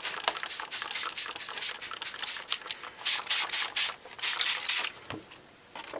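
Hand trigger spray bottle misting the potting soil in seedling cups: a rapid series of squeezes, each a short hiss, loudest about three to five seconds in.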